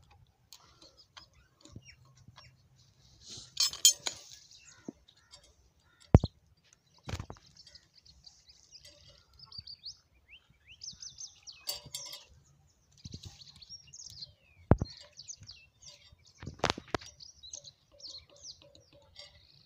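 Birds chirping, with about half a dozen sharp metallic clicks and clinks of hand tools on a stopped single-cylinder diesel engine as its fuel system is worked on. The engine is not running.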